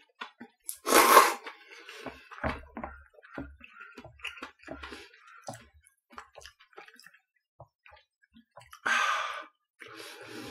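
A person eating udon: a loud slurp from a small bowl of broth about a second in, then scattered chewing sounds and light clicks of wooden chopsticks against the bowls, with another short loud burst near the end.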